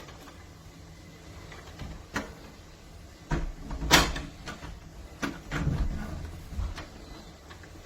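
A door being moved and its plastic door stopper latch handled: a series of clicks and knocks, the loudest about four seconds in, with a low rumble of the door shifting near the six-second mark.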